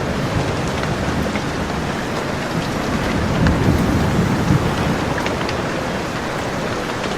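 Steady heavy rain falling, with faint drop ticks through it. Low thunder rumbles under the rain and swells briefly about halfway through.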